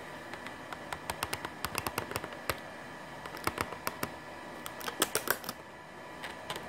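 Sharp plastic clicks and taps in quick irregular clusters as the snap-together plastic dish reflector of a Ubiquiti LiteBeam AC Gen2 antenna is handled, the loudest cluster about five seconds in, over a faint steady hum.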